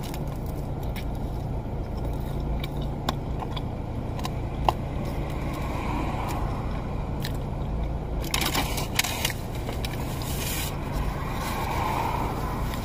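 Biting into and chewing a crunchy battered Korean corn dog: scattered crisp crunches and clicks, with a short cluster of louder crunching rustles about two-thirds of the way through, over a steady low car rumble.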